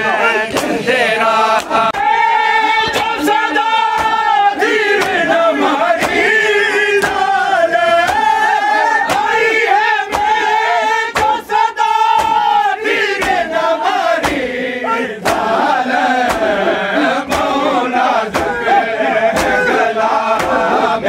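A crowd of men chanting a noha together in loud unison, with sharp slaps of hands striking bare chests in matam scattered through the chant.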